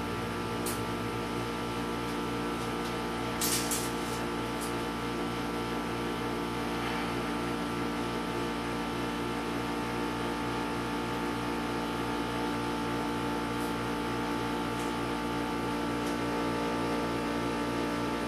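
Steady electrical hum made of several held tones over a fast, low pulsing throb. A short cluster of light clicks comes about three and a half seconds in, and a few faint ticks follow later.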